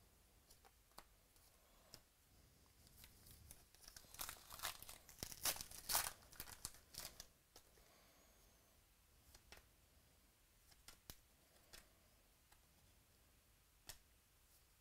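A 2018 Classics football card pack's wrapper torn open and crinkled, a burst of crackling between about three and seven seconds in. A few faint ticks follow as the cards are handled.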